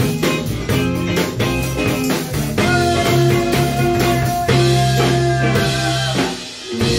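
Live band playing blues-rock: electric guitar over a drum kit with a steady beat and a tambourine, one note held for a few seconds midway. The music drops out briefly near the end, then comes back in.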